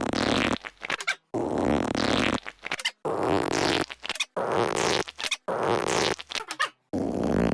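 A fart sound effect repeated in a steady rhythm about six times. Each is a noisy blast of roughly half a second to a second with a falling hiss, ending in a quick run of small pops.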